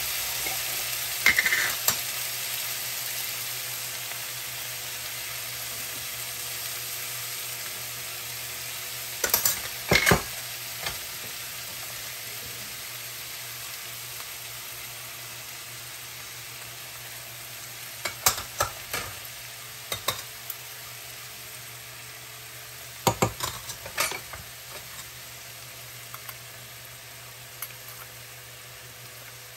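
Chopped onions, tomatoes and greens sizzling in a nonstick frying pan, the hiss slowly dying down. A few short clusters of clatter from the utensils against the pan break in.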